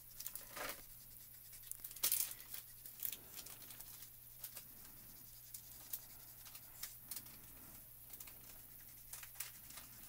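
Copic alcohol marker nib scratching and dabbing on stamped cardstock in short strokes, with scattered light clicks and knocks, the loudest about two seconds in, over a faint low hum.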